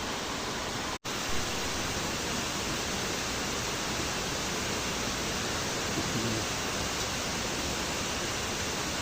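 Waterfall rushing, a steady even roar of falling water. The sound cuts out for an instant about a second in, then resumes.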